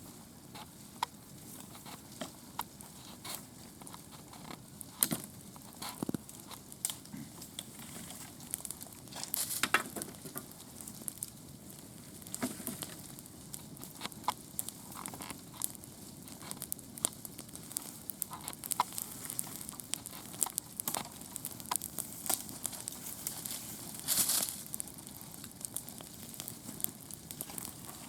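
Wood campfire burning, crackling steadily with irregular sharp pops and snaps, a few of them louder, about ten seconds in and again near the end.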